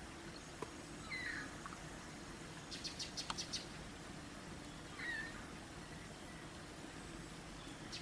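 Cat meowing faintly, two short high meows about a second in and again about five seconds in. A quick run of sharp high clicks comes around three seconds in.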